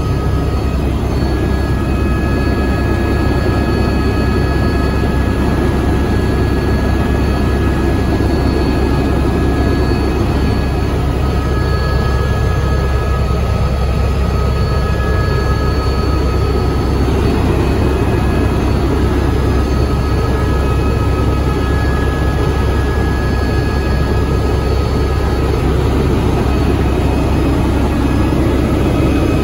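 Helicopter in flight heard from inside the cabin: a loud, steady rumble of engine and rotor with a high whine laid over it.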